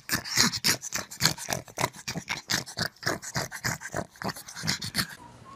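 Two pugs play-wrestling, with quick, noisy breaths and grunts, about five or six a second, stopping about five seconds in.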